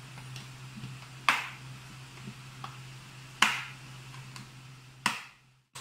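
Lid of a plastic food container being pressed shut: three sharp plastic snaps about two seconds apart, with a few fainter clicks between, as the lid's clips lock into place.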